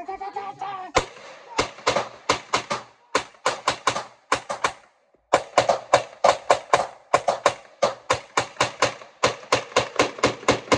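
CZ Scorpion carbine firing rapid semi-automatic shots, about three to four a second, with a short pause around five seconds in before the string resumes. Thirty-odd shots in all, much of a magazine.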